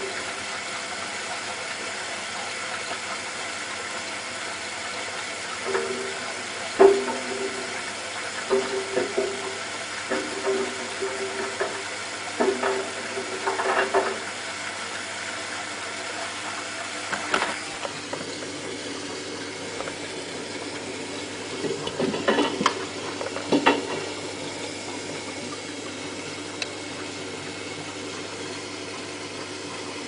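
Hotpoint Ultima WT960 front-loading washing machine on its final rinse with an empty drum: water sloshing and splashing as the drum turns, over a steady hiss, with occasional knocks.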